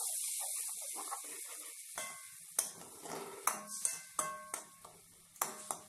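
Shallots and tomatoes sizzling faintly in oil in an aluminium kadai, the sizzle dying away over the first couple of seconds. Then a metal spoon stirring and knocking against the pan's side: several sharp clinks, each with a short ring of the pan.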